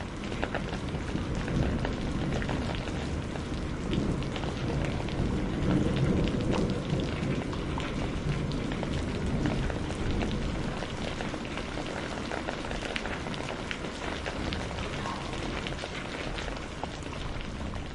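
Steady heavy rain with many close drop impacts, under a low rumble of distant thunder that swells in the middle and then eases.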